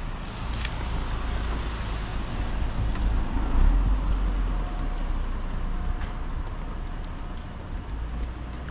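Road traffic: a motor vehicle passing close by on the street, its rumble swelling to a peak around the middle and then easing off.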